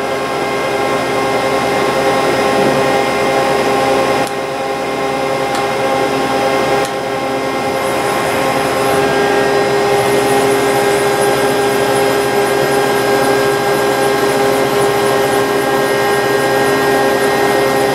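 Doosan MX2500 LST multi-axis CNC lathe running: a steady mechanical hum with several held tones, changing level briefly about four and seven seconds in.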